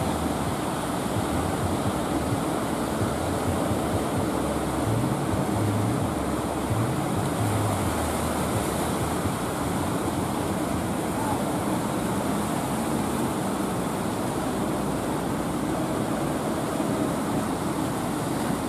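Steady wash of surf and churning sea water, with the low drone of a wooden fishing boat's engine underneath, clearest in the first half.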